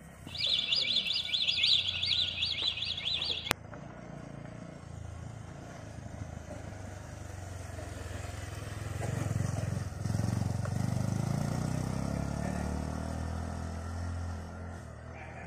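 A rapid high-pitched chirping, about four chirps a second, cuts off suddenly after about three seconds. Then a motorcycle engine passes, growing louder from the middle, at its loudest for several seconds, and fading near the end.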